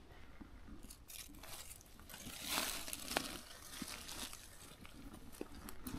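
Footsteps crunching and rustling through dry fallen leaves, in an irregular stream of crackles, with a louder stretch of rustling around the middle.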